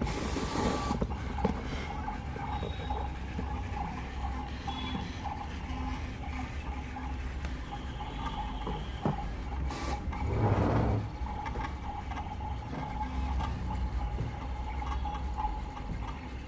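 SkyCut C24 vinyl cutting plotter running, its motors whirring and humming as the cutting head travels and the rollers shift the printed sticker sheet, with short higher motor whines; the machine is a bit noisy. Brief bursts of hiss come near the start and about ten seconds in.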